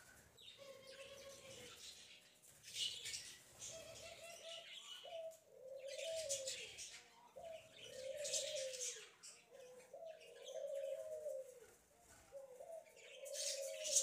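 Budgerigar chicks calling in the nest: a steady run of short, low calls that rise and fall, about one a second. Every few seconds, raspy higher begging cheeps come in bursts.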